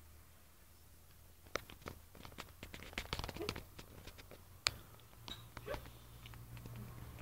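A cat licking another cat's fur as it grooms it: a run of short irregular licking clicks and small rasps starting about a second and a half in.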